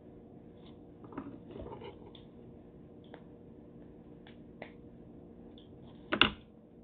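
Cooked crab claw shell being cracked open and picked at: scattered small clicks and wet squishing, then two sharp cracks close together about six seconds in, the loudest sound.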